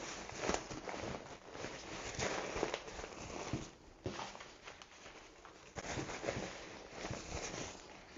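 Nylon rucksack fabric rustling and crinkling as a camping stove is pushed down into the pack's main compartment and the pack is shifted about, with a few small knocks and clicks.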